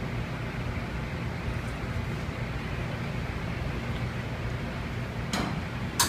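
Steady rumble of commercial kitchen ventilation with a low hum. Two short sharp clicks come near the end, the second the louder.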